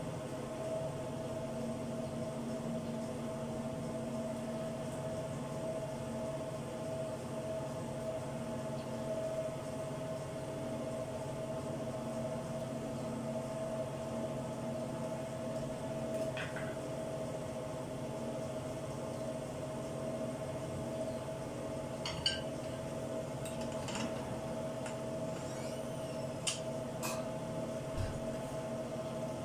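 A steady hum with a constant tone, and a few light clicks and clinks in the second half as a knife and utensils work on a plastic cutting board.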